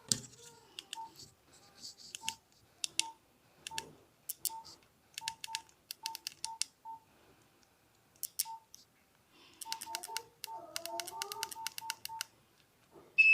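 Nokia 1616 keypad being pressed over and over, each press a small click with a short key beep; the presses are spaced out at first, then come in a quick run of about a dozen. A loud high tone sounds near the end.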